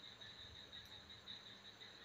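Faint, steady chirping of crickets: a continuous high trill that pulses slightly.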